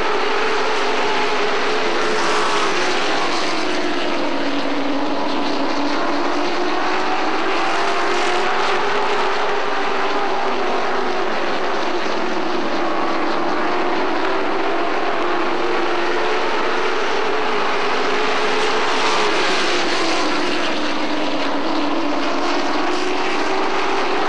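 A pack of short-track pro race trucks with Chevrolet crate V8 engines running laps. The engine note rises and falls in slow swells as the pack circles the oval.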